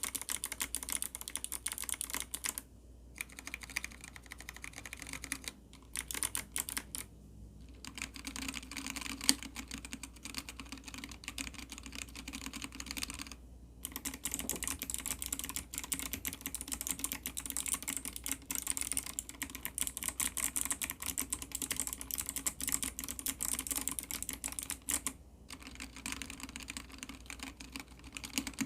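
Typing on an ABKO ADK05 mechanical keyboard fitted with Kailh Box White and Kailh Box Red switches: dense, rapid key clicks in runs, broken by a few short pauses.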